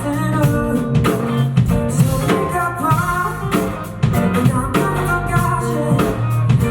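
Live band music: a drum kit keeping a steady beat under guitar and bass.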